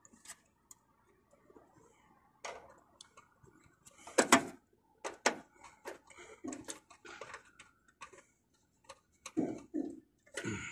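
Irregular small clicks, taps and scrapes of a screwdriver and wire ends working terminal screws in an air-conditioning unit's metal control panel, with one louder knock about four seconds in.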